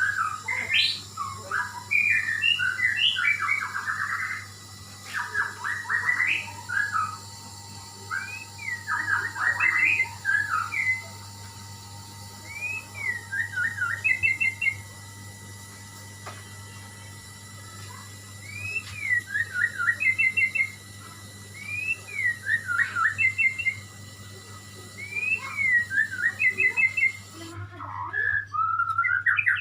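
White-rumped shama (murai batu) singing loud whistled phrases with short pauses. The first half is varied fast warbling; from about halfway it repeats one phrase every few seconds: a rising-and-falling slurred whistle followed by a quick trill. A steady low hum runs underneath.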